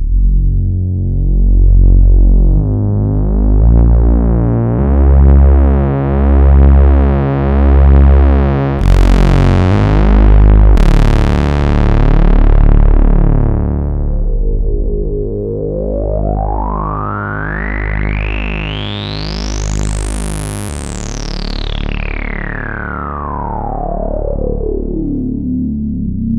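Moog Source monophonic analog synthesizer playing a deep bass line. About a third of the way in the tone opens up much brighter, then a resonant filter peak sweeps slowly up into a high whistle and back down over the notes.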